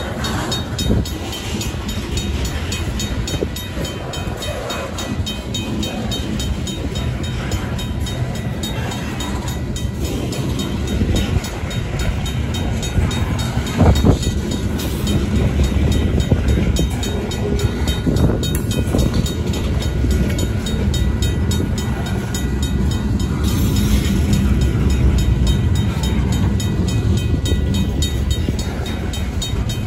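Freight cars (covered hoppers and tank cars) rolling past at a crossing: a steady low rumble of wheels on rail with occasional clanks, one louder knock about halfway through. Over it the crossing's mechanical bell rings rapidly and steadily.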